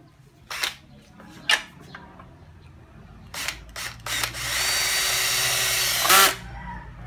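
Makita cordless drill/driver working at a screw hole in a plastic wall mount: a few short trigger blips, then about two seconds of steady motor whine that winds down and ends in a sharp knock. Two sharp clicks come earlier, about half a second and a second and a half in.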